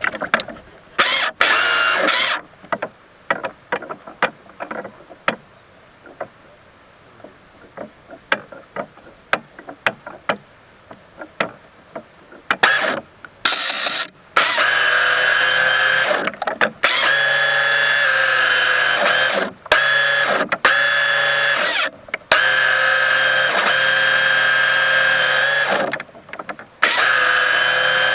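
Motor of a mini radio-controlled boat, heard from a camera on its hull, running in bursts with a steady whine that cuts in and out several times. For about ten seconds near the start the motor is off, leaving only scattered clicks and ticks, before it runs again for most of the rest of the time.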